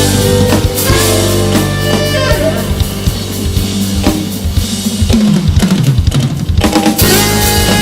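Jazz band playing an instrumental passage with drum kit, bass and guitar. A run of quick drum hits comes about five seconds in, and the full band returns near the end.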